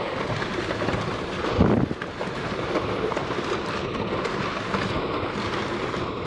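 Rock slide rumbling and clattering down the volcano's slope: a continuous heavy rumble, with a louder surge a little under two seconds in, and wind buffeting the microphone.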